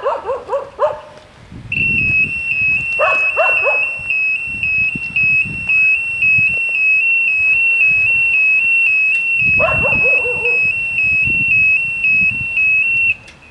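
Railway level-crossing warning bells: a loud, high electronic tone starts about 2 seconds in and alternates rapidly between two close pitches, stopping just before the end. A dog barks in short bursts at the start, around 3 seconds in and again around 10 seconds in.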